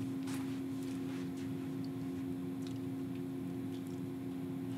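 Room tone with a steady low electrical hum and a few faint clicks.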